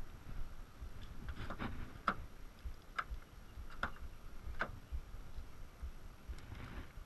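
Footsteps on wet pavement at a walking pace, a steady series of sharp steps a little under a second apart, over low rumbling noise on the microphone.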